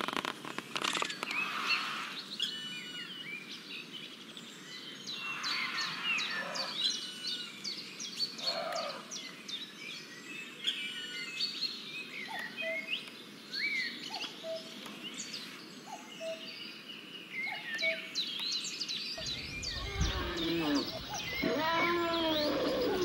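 Birds chirping and calling, many short rising and falling notes, with a lower short note repeating about once a second in the middle. Near the end a low rumble and a call that slides up and down in pitch come in.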